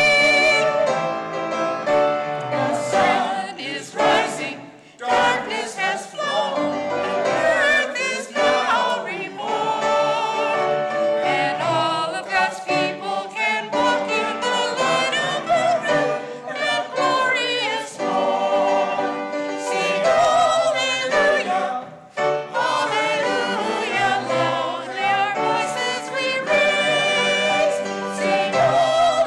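A church choir of mixed men's and women's voices singing an anthem in parts, phrase after phrase with short breaths between.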